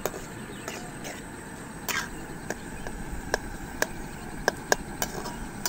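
Scattered sharp clicks and taps at irregular intervals, about a dozen, over a steady outdoor background hiss.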